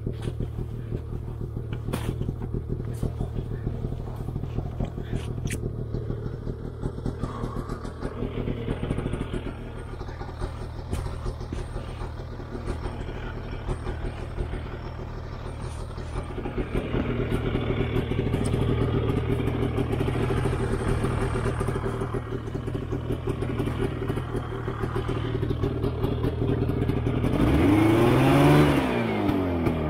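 Snowmobile engine running steadily at idle. Near the end it revs up and drops back once as the throttle is worked.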